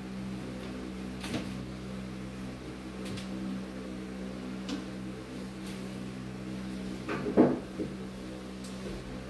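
Light knocks and, about seven seconds in, a louder clatter of wood, like a kitchen cabinet being bumped, over a steady low hum.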